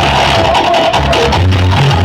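Loud electronic dance music with heavy bass played through a large sound system.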